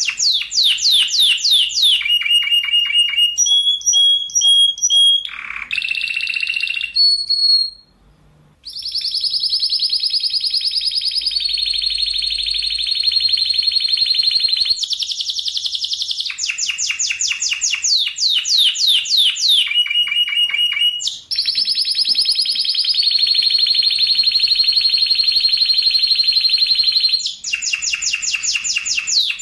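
Spanish Timbrado canary singing in fast descending trills and long, even rolls of rapid repeated notes, each held for several seconds. There is a brief pause about eight seconds in.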